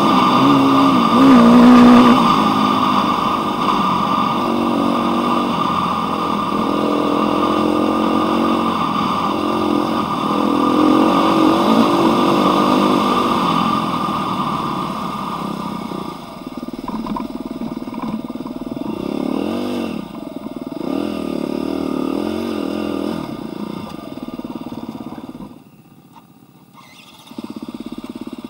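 Dirt bike engine running under way on a dirt trail, its pitch rising and falling as the throttle is worked. Near the end the engine sound drops off sharply for about two seconds, then picks up again.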